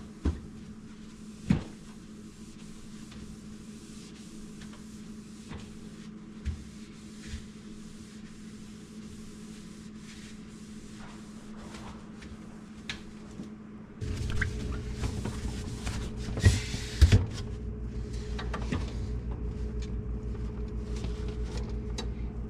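Sharp clicks and knocks of containers and shelves being handled in a refrigerator as food is put away, over a steady low hum. About 14 seconds in, a louder low hum starts, and two more knocks follow.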